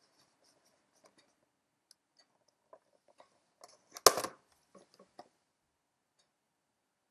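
Handling noise from a boxed Barbie accessory pack, its clear plastic window and cardboard card being moved about: scattered faint taps and crinkles, with one louder, longer rustle about four seconds in.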